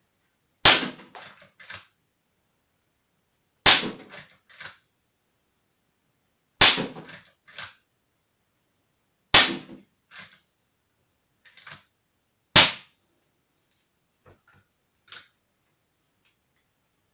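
Walther Lever Action CO2 air rifle fired five times, about three seconds apart, each sharp shot followed by a few lighter clacks as the lever is worked to cock the hammer and bring up the next pellet from the eight-shot rotary magazine. A few faint clicks near the end as the rifle is set down.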